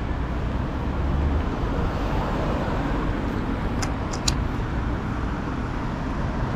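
Road traffic: cars passing on a busy street, a steady rumble of engines and tyres, with a few brief clicks near the middle.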